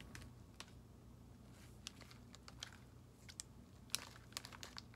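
Near silence with faint, scattered light clicks and ticks, a small cluster of them near the end.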